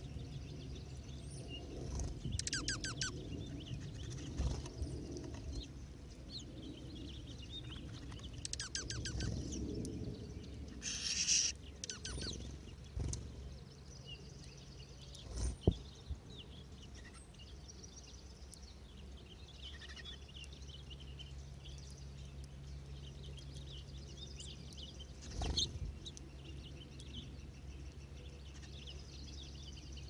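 A small flock of Cassin's finches and dark-eyed juncos at a ground seed pile, chirping and twittering, with two short rapid trills early on and near 9 s, a brief rushing burst about 11 s in, and two sharp knocks. A low steady hum lies underneath.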